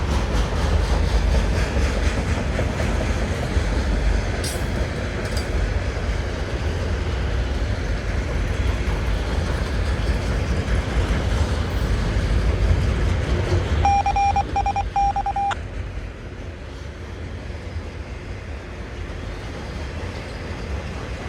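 Freight train rolling past with a steady low rumble of locomotive and cars, easing off somewhat in the last few seconds. A short burst of pulsing electronic beeps sounds about two-thirds of the way through.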